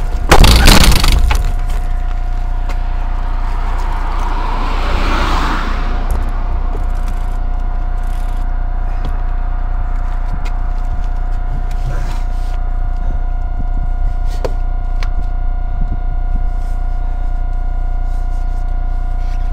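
Electric-assist bicycle ridden over a rough footpath: a loud knock about half a second in, a rushing noise that dies away by about six seconds, then a steady low rumble with a steady whine over it.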